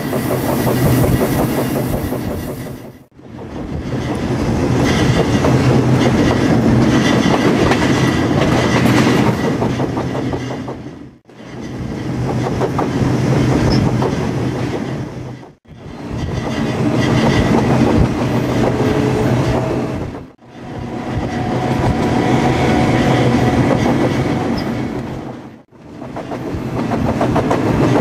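Freight train rolling on the rails, a steady loud running noise of wheels on track with a low hum, broken by five short fades to near silence between edited clips.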